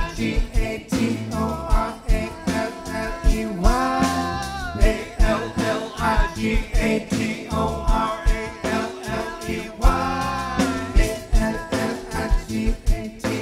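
Live band playing: electric guitars, keyboard and a drum kit keeping a steady beat, with a voice singing over it.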